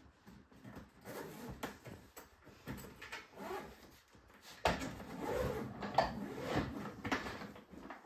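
Handling noises of a hard-shell suitcase: knocks, scrapes and clatter as it is set down on a wooden floor and opened, busiest from about five seconds in.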